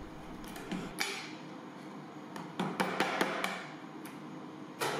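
Hammer striking a steel chisel to crack and knock the dental-plaster investment mould off a freshly cast aluminium figure. There is one sharp knock about a second in, a quick run of lighter taps around the middle, and another sharp knock near the end.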